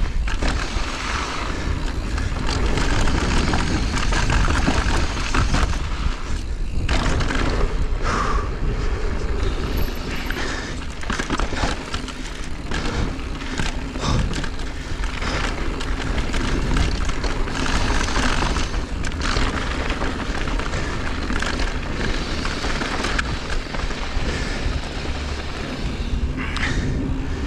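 Mountain bike riding down a rough, rocky trail: a steady rumble and rattle with frequent short knocks of the tyres and bike over rock.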